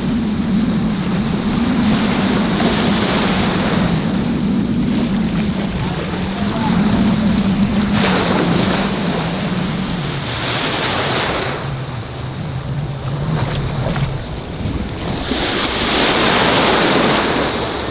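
Shallow surf breaking and washing around a wader, with wind buffeting the microphone; the wash comes in surges, the biggest near the end. A low wavering hum runs underneath and fades out about three quarters of the way through.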